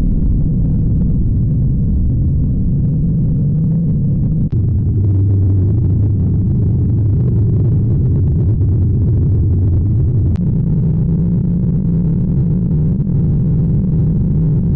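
Loud, low droning jumpscare sound effect, changing abruptly about four and a half seconds in and again about ten seconds in.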